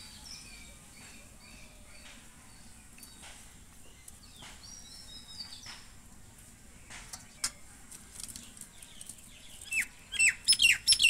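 Faint bird chirps, then near the end a nearby bird breaks into a loud, quick run of sharp downward-sliding calls, about four a second.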